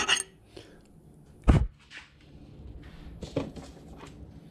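Last strokes of a hand file rasping on a brass brush holder stop just after the start. Then a single heavy thunk about a second and a half in, the loudest sound, and a lighter knock a couple of seconds later, with small clicks of tools being handled.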